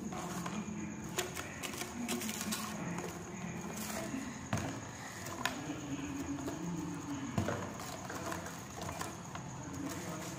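Foil-wrapped tube and string being handled on a wooden bench: scattered crinkles and taps. Behind them are low, drawn-out calls, the longest lasting a couple of seconds near the middle.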